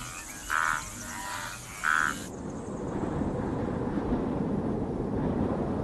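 Short pulsed croaking animal calls, two louder ones about a second apart. A little past two seconds in they cut off suddenly and a steady low rumble takes over.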